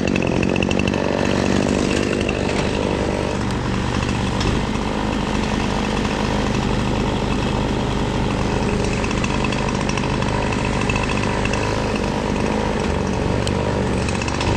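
Small gasoline engine running steadily at an even speed.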